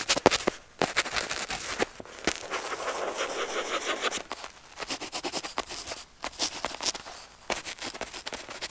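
Pen tip scratching on paper in quick short strokes, with one longer continuous scratch about two and a half seconds in.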